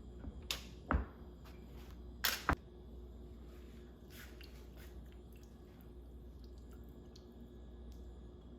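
Kitchen handling sounds: two brief rustling swishes, each ending in a sharp knock, then a softer rustle, over quiet room tone.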